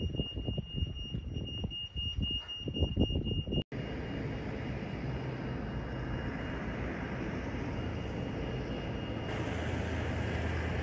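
Steady high-pitched jet whine over airport apron noise, with wind gusting on the microphone for the first few seconds. After an abrupt cut, an even rushing noise carries the same whine and slowly grows louder toward the end.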